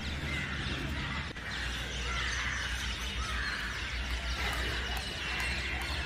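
Birds chirping in the background over a steady low outdoor rumble.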